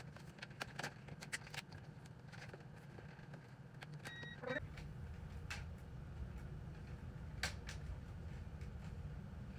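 Steady low hum of background noise, deepening into a low rumble from about halfway, with scattered light clicks and taps and one short electronic beep a little after four seconds in.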